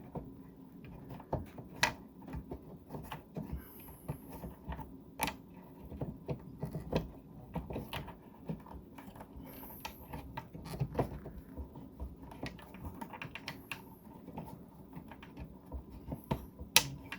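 Irregular light clicks and taps of the high-mount brake light housing being handled and fitted back into place, with one sharper click near the end.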